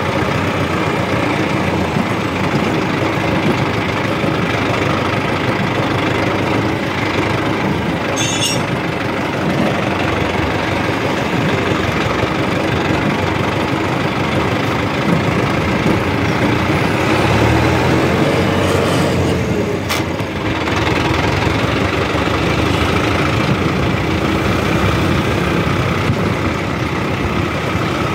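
Mahindra Arjun 605 DI tractor's turbocharged diesel engine running steadily while the tractor drives along a road, heard from the driver's seat.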